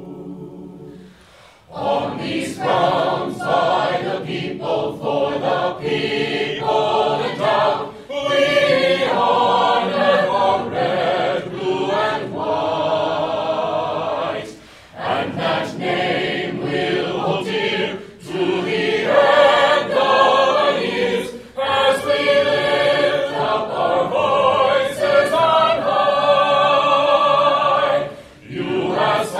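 Mixed chamber choir singing an alma mater song, phrase by phrase, with short breaths between phrases.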